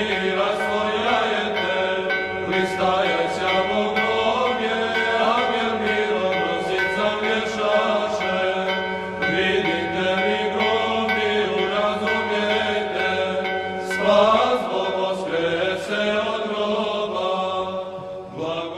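Orthodox church chant: a singing voice winding up and down in pitch over a steady held drone.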